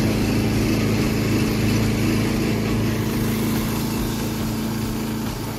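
Karakat all-terrain vehicle's engine running steadily while the machine drives along a forest track.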